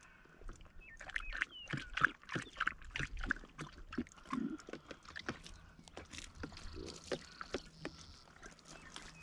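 Irish setter lapping water from a plastic jug, a quick run of wet laps about three to four a second.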